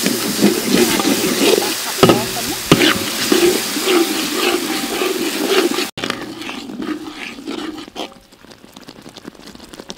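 Chili paste sizzling in a metal wok while a metal ladle stirs and scrapes through it, with a few sharp clicks of the ladle against the pan. About six seconds in it cuts to a quieter bubbling and sizzling of the sauce.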